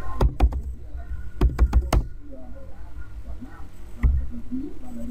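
Computer mouse clicking: a quick group of three clicks, a run of about five more a second later, and a single click near the end, over a low steady hum.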